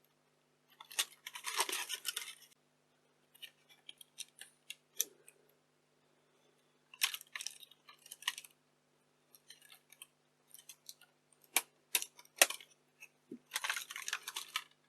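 Small screws being worked out with a screwdriver and plastic camcorder casing parts being handled: scattered bursts of scraping and rattling with several sharp clicks, the loudest clicks about twelve seconds in.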